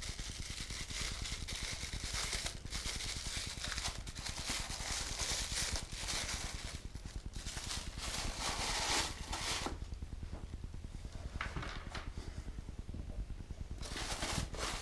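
Handling noise from unpacking a die-cast model crane: packaging rustling and crinkling in uneven bursts, with small clicks of parts being handled.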